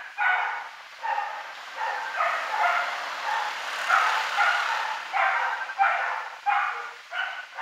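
An animal calling repeatedly in a steady series of short calls, about two a second.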